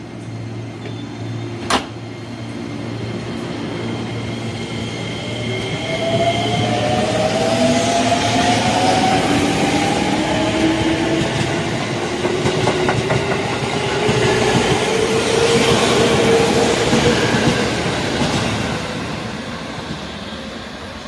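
JR 205-series electric train pulling away from a station platform. There is one sharp clack about two seconds in. Then the traction motors whine, several tones rising in pitch together as the train gathers speed, while the cars run close past with wheel noise on the rails. The sound grows loud in the middle and eases off near the end.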